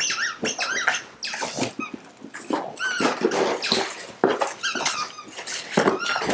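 Dogs at play over a box of new toys: a run of short, high-pitched squeals and whines, each bending up and down in pitch, many in quick succession.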